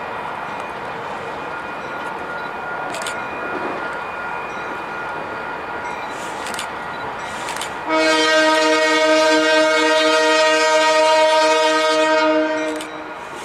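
Diesel locomotive multi-chime air horn, sounding faintly and steadily at first over the noise of a passing train. About two-thirds of the way in it breaks into one loud, long blast of several notes together, which cuts off shortly before the end.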